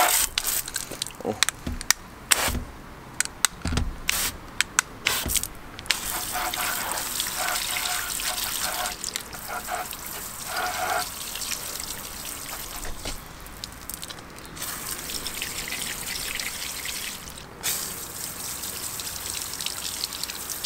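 Garden hose spray rinsing wheel cleaner off a scooter's tyre and rim: the jet hissing and splattering on the wheel and wet paving, with water dripping off. It comes in irregular spatters for the first few seconds, then settles into a steadier hiss.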